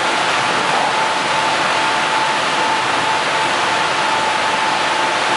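Yadong SYS-901 tunnel car wash running on a car: a steady rush of water spray and rotating cloth brushes scrubbing the bodywork, with a thin steady tone running under it.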